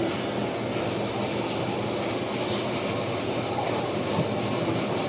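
Metal lathe running steadily: an even mechanical hum with a low rumble and no break or change.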